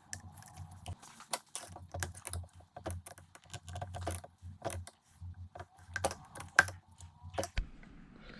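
Irregular light clicks, taps and knocks of small parts being handled and worked by hand.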